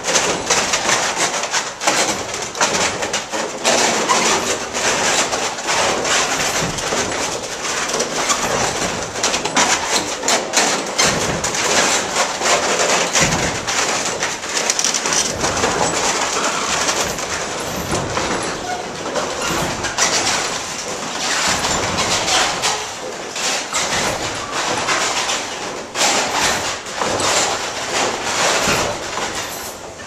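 Water-powered sawmill running, its wooden cog wheel meshing with a wooden trundle gear, wood on wood, with a dense continuous clatter of knocks.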